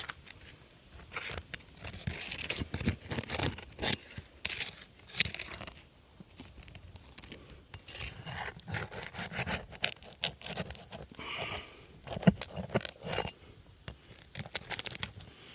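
A roof snake, a thin flat metal shingle-removal tool, scraping and clicking as it is worked under 3-tab asphalt shingles, in irregular short rasps with sharp metallic clicks.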